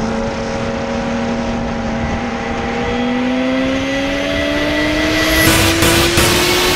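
Sportbike engine running steadily, then climbing in pitch from about three seconds in as the bike accelerates, over a rush of wind noise.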